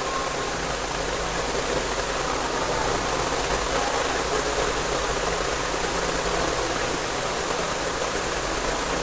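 Steady, even rushing background noise with a low hum underneath, and no distinct events.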